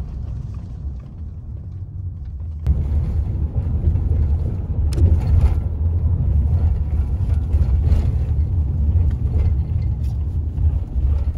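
Steady low rumble of a moving car heard from inside the cabin, the road and engine noise stepping up louder about three seconds in, with a few faint ticks.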